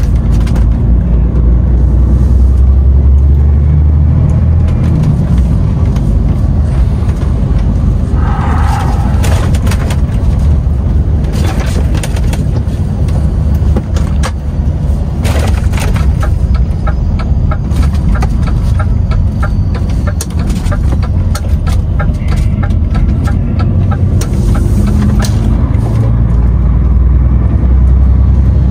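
DAF XF lorry under way, heard from the cab: a steady low rumble of the diesel engine and road, with scattered sharp clicks and rattles from about a third of the way in.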